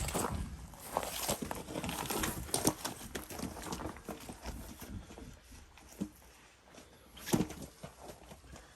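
Irregular clicks, knocks and scuffs of work on a dually pickup's wheel during a tire change, busiest in the first half, with a single sharp knock about seven seconds in.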